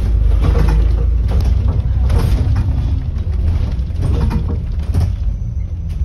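Inside a moving double-decker bus: steady low rumble of the engine and road, with short knocks and rattles from the bodywork.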